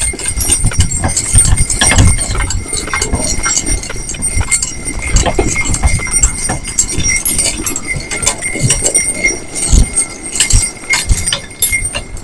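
A team of two small horses trotting in harness on a packed-snow road: a continuous run of dull hoofbeats with light clinks and rattles from the harness and wagon.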